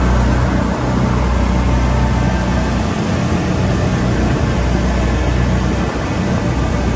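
Twin outboard motors on a fishing boat running steadily at speed, their low drone under a loud, even rush of wind and water.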